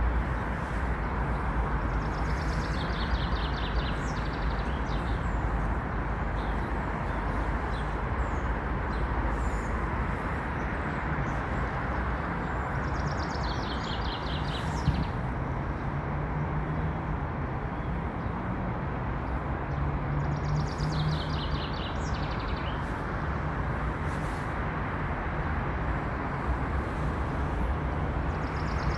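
A songbird sings a short phrase of quick repeated high notes, four times, several seconds apart, over a steady low rumble.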